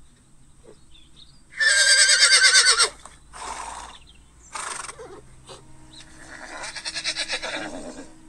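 Horse whinnying, the recorded call of a 3D augmented-reality horse: a loud quavering whinny, two short breathy bursts, then a second, softer whinny near the end.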